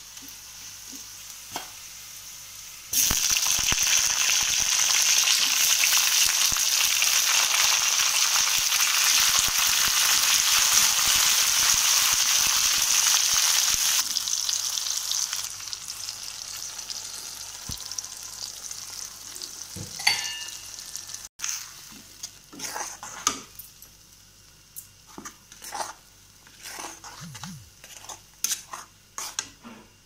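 Onions and tomato slices frying in hot oil in a wok. A loud sizzle starts suddenly about three seconds in and dies down over the next dozen seconds. In the second half a metal spatula scrapes and taps the pan over a softer sizzle.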